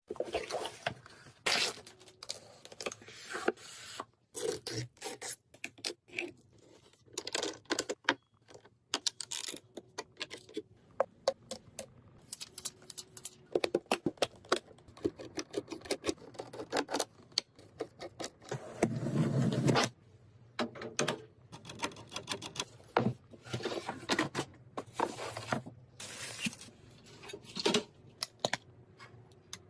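Irregular clicks, taps and scrapes of computer hardware being handled and fitted together, with a longer rustling scrape about two-thirds of the way in.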